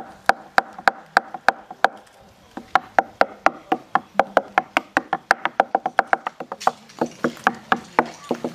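Wooden sticks beating a hollow fallen log like a drum, each strike giving a hollow wooden knock. The strikes come about three a second, stop briefly about two seconds in, then quicken toward the end.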